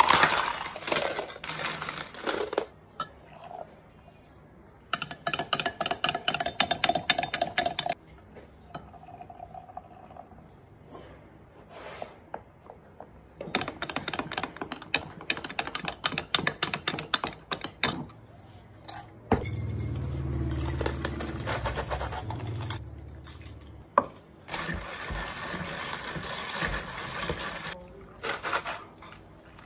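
Ice cubes clattering and clinking while iced drinks are made: ice tipped into plastic cups, a spoon stirring in a glass jug, and milk poured over ice. The clinking comes in several spells of rapid clicks with short pauses between, and a low hum sounds for a few seconds about two-thirds of the way through.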